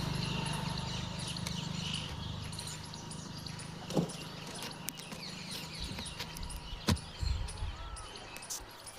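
Many small birds chirping, over a low hum that fades during the first few seconds, with two sharp knocks about four and seven seconds in.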